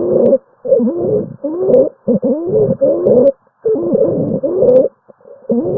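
Abnormal breath sounds from a patient's chest: rapid breaths in quick succession, a little more than one a second, with short silent gaps. Each breath carries a musical tone that bends up and down in pitch.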